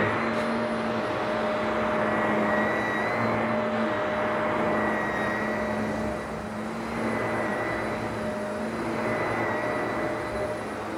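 Vacuum cleaner running: a steady rushing of air with a constant motor whine, its loudness rising and falling slightly as it is worked over the floor.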